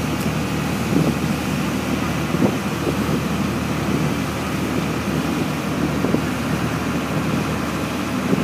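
Boat's engine running steadily while under way, with wind buffeting the microphone.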